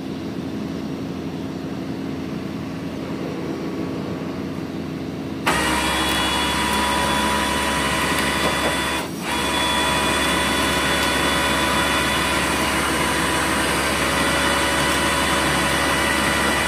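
Tow truck engine running with its winch operating, a steady mechanical drone with a low hum. About five seconds in it steps up suddenly louder and stays there, with a brief dip near the ninth second.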